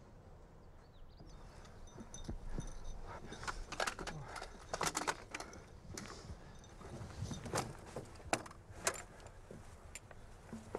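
Scattered sharp metallic clinks and knocks of gear and equipment being handled on a tank's steel hull, about a dozen strikes, some in quick clusters, between about two and nine seconds in.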